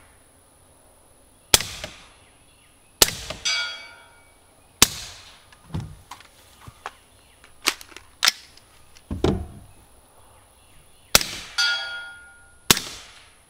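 Daniel Defense DDM4 ISR, an integrally suppressed .300 Blackout AR-15, fired semi-auto: a string of sharp suppressed shots about one to two seconds apart. Two of the shots are followed by a brief ringing.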